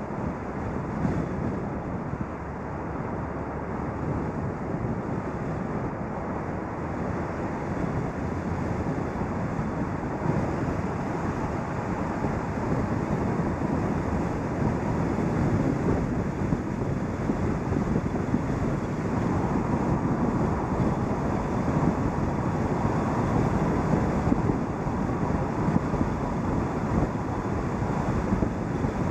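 Car driving at speed: steady wind rush on the microphone mixed with tyre and road noise, gradually growing louder over the first half.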